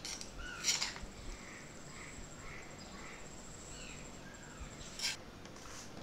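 A metal spoon scraping and clinking against a metal strainer over a glass bowl, a sharp clink about a second in and two more near the end. Faint short chirps sound in the background between them.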